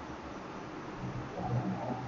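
Steady microphone hiss and room tone, with a faint, brief low sound about one and a half seconds in.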